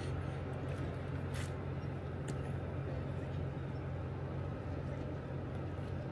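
Outdoor ambience: a steady low rumble with a few faint, sharp clicks.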